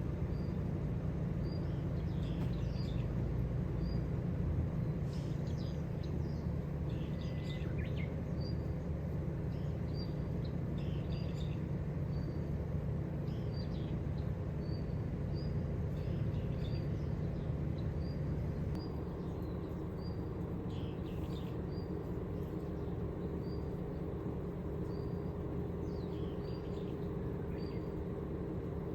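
Small birds calling outdoors, one repeating a short high chirp about once a second while others add scattered calls, over a steady low rumble.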